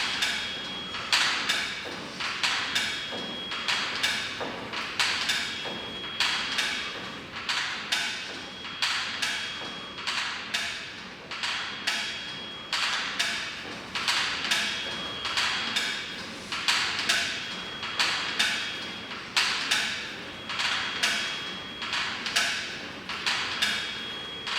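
Footfalls thudding on a treadmill belt in a steady walking rhythm, with a faint high tone coming and going every couple of seconds.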